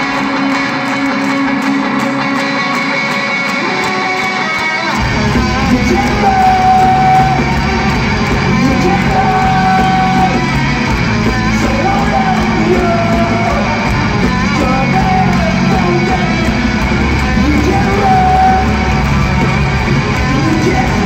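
A rock band playing live in an arena, recorded from the crowd. Electric guitar carries a lighter opening with no bass, then the full band comes in with heavy low end about five seconds in.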